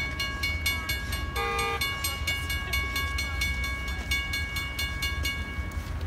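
Railroad grade-crossing warning bell ringing rapidly, about three strikes a second, then falling silent near the end as the crossing clears for the gates to rise. A short horn blast sounds about a second and a half in.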